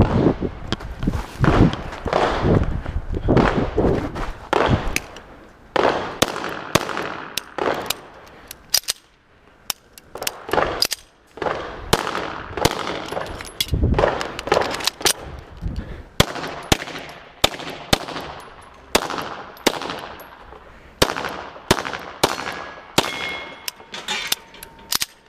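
A string of gunshots fired through a practical-shooting stage, irregularly spaced and often in quick pairs. Near the end a few short metallic rings are heard, like hits on steel targets.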